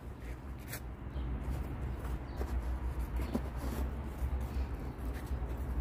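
Quiet outdoor background noise: a low, steady rumble with no distinct event.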